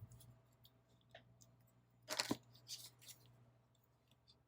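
Faint handling noises of paper craft supplies: soft rustles and clicks of sticker sheets and paper pieces being picked through, the loudest rustle about two seconds in, over a faint low steady hum.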